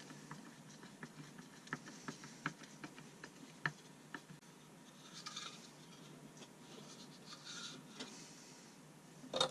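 Faint clicks and scrapes of small objects being handled, with two short scraping rustles in the middle and a sharp knock right at the end.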